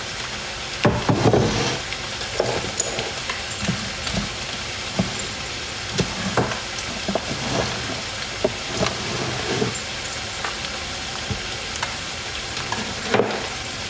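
Food frying in a pan on the stove, a steady sizzling hiss, with scattered short knocks and clatters.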